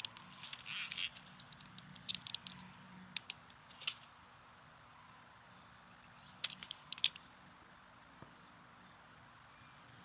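Film sound-effects track for an animated insect film, played back with no dialogue or music: scattered small clicks, ticks and brief skittering bursts. They are busiest in the first four seconds and again around seven seconds in, with quiet stretches between.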